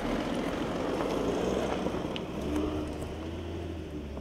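Audi Q7 SUV driving slowly along a dirt track: a steady low engine hum with tyre and rolling noise, fading slightly as the vehicle moves away.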